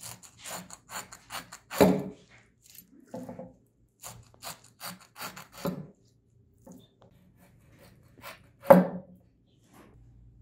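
Coping saw's thin blade sawing through a peeled pineapple in quick back-and-forth strokes, about four to five a second, in two runs. Louder knocks about two seconds in and again about nine seconds in.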